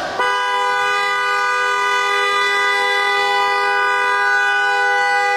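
Basketball game-clock horn sounding one long, steady blast of about five seconds, a flat chord of two pitches, starting just after the start and cutting off at the end; the buzzer that marks the end of play.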